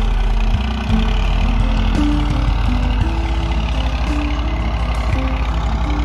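Diesel farm tractor engine running steadily under load as it pulls a plough through the soil: a continuous low drone with an even pulsing rhythm.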